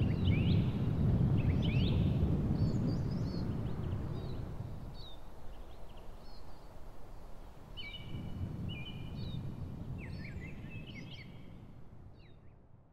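Outdoor ambience: a low rumble under several birds chirping, with short trills a few seconds before the end, all fading out.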